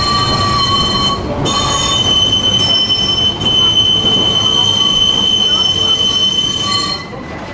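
Heritage tram's steel wheels squealing against the rails over the low rumble of the running car, a steady high-pitched squeal that dies away near the end.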